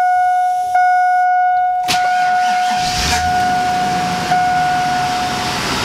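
A warning chime dings repeatedly with the key on. About two seconds in, the starter engages briefly and the 2002 Chevy Avalanche's 5.3-litre V8 catches at once on a sub-zero cold start and runs with a steady hiss, while the chime keeps going until near the end.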